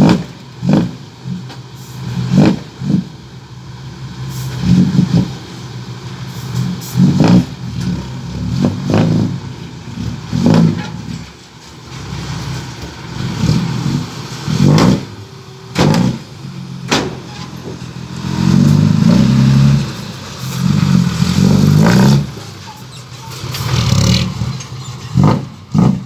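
Dump truck's diesel engine revved in a string of short, sharp bursts, with a longer spell of revving about three quarters of the way through.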